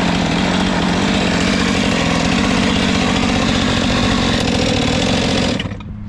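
Chainsaw running steadily at high revs, then dropping away sharply about five and a half seconds in.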